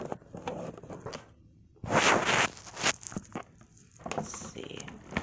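Clear plastic blister packaging crackling and rustling as Beyblade tops are worked out of their moulded tray, with scattered clicks and one loud crinkling burst about two seconds in.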